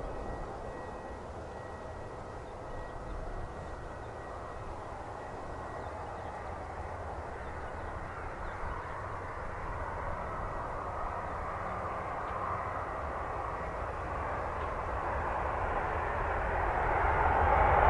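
Boeing 767 jet engines on landing: a steady whooshing hum through the approach and touchdown that grows louder, then swells near the end as the engines spool up with a rising whine during the landing rollout.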